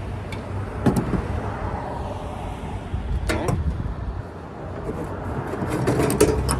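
Short knocks and scrapes of a welder's sheet-metal cover being handled and fitted: a couple about a second in, another pair past the middle and a cluster near the end, over a steady low hum.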